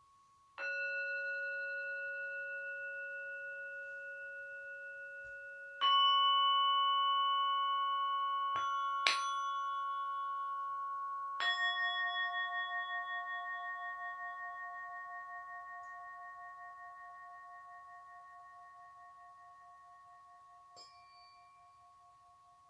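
Tuning forks struck one after another, about five times, each ringing a long, clear tone that fades slowly. The tones overlap and beat against each other in a slow wavering pulse, and a small tap comes near the end.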